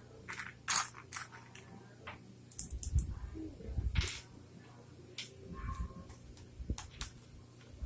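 Small plastic Lego pieces clicking and rattling against each other and the table as they are picked through by hand, in scattered sharp clicks with a few soft thumps.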